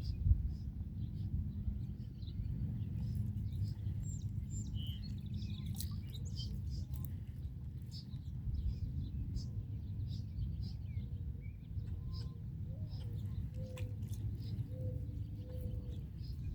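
Small birds chirping repeatedly in short high notes, over a steady low rumble.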